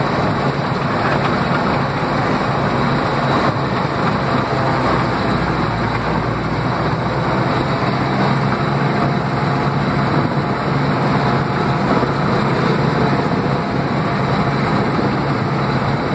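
Panzer 38(t) tank's engine running steadily as the tank drives along, heard loud and close from on board.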